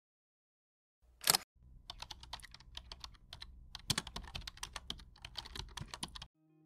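Typing sound effect: a rapid, uneven run of key clicks over a low hum, starting just after a short sharp burst about a second in and stopping shortly before the end.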